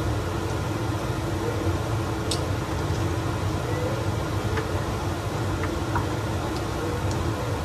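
Steady low mechanical hum, with several light clicks of a spoon knocking against the cooking pot as the food is stirred.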